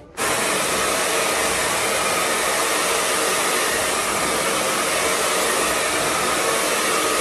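Handheld hair dryer blowing steadily on wet hair, cutting in abruptly at the start and then running at an even level.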